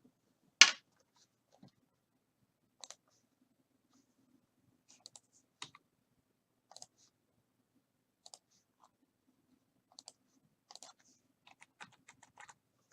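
Scattered sharp clicks at a computer, the randomize button being clicked over and over to shuffle a list. There is one much louder click about half a second in and a quicker run of clicks near the end, over a faint low hum.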